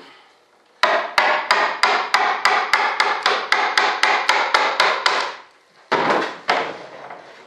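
Rapid run of sharp taps, about four a second, each with a short ring, as a hand tool strikes the edge of a composite wing mold to work the part free during demolding. Two heavier knocks follow near the end.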